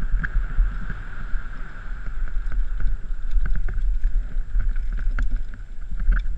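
Wind buffeting a helmet-mounted camera's microphone as a downhill mountain bike rolls fast over grass and gravel, a steady low rumble with scattered clicks and rattles from the bike.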